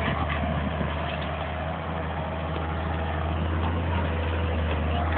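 Excavator's diesel engine running with a steady low hum, growing a little louder toward the end.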